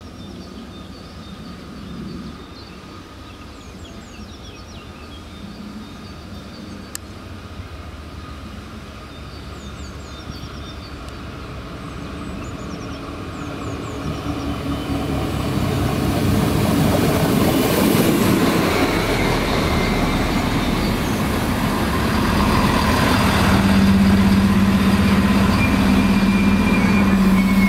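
Alstom Coradia LINT diesel multiple unit (DB class 648) pulling into a station, its noise growing steadily louder from about halfway through as it runs up the platform. Near the end a strong, steady low engine drone dominates as the railcar comes alongside.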